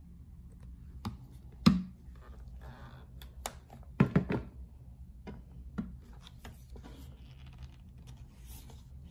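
Hard plastic clicks and knocks as a Bosch BHN16L handheld vacuum cleaner and its clear dust container are handled, with the vacuum switched off. There is one sharp knock near two seconds in and a quick run of clicks around four seconds, with light rubbing in between.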